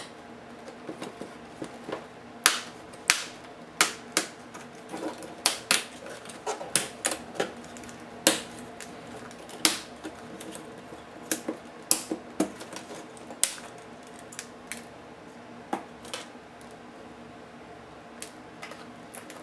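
Plastic snap clips of an Acer Aspire One netbook's LCD bezel clicking and snapping as the bezel is pried away from the screen lid by hand. The sharp clicks come irregularly, several a second at the busiest, and are densest through the middle, over a faint steady hum.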